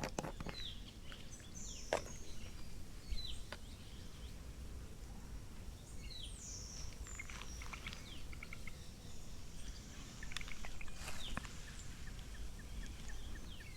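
Wild birds calling in the forest: scattered short, high chirps and calls, several of them sweeping down in pitch, over a low steady background, with a couple of faint sharp clicks.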